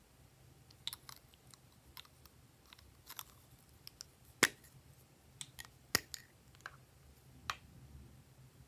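Small plastic ice-cream-cone-shaped containers handled and their caps pulled off: a scatter of light plastic clicks and taps, with two sharper clicks in the middle.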